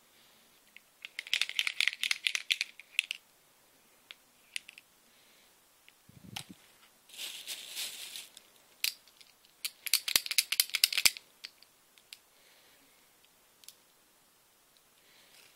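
Plastic bag crinkling and paint markers clicking against one another as hands dig through a bag of markers, in three bursts with quiet between. A single dull bump about six seconds in.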